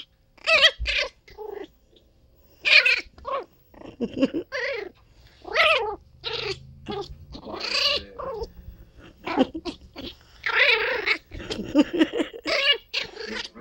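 Teacup chihuahua puppy making a string of short, high-pitched whiny vocalizations, about a dozen of them, somewhere between yowls and small growls.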